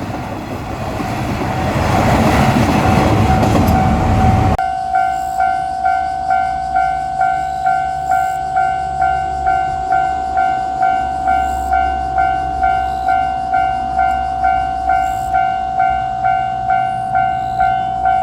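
A diesel railcar train passes with a loud rumbling run over the rails while a Japanese railroad crossing bell rings. The train noise cuts off suddenly about four and a half seconds in. The crossing bell then keeps ringing alone in an even "kan-kan" beat, about two strikes a second.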